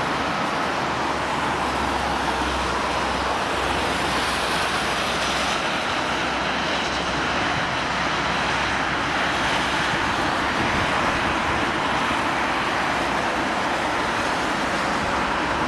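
Airbus A321-111 jet airliner with CFM56-5B engines landing on a wet runway: a steady rushing jet noise that holds at much the same level throughout.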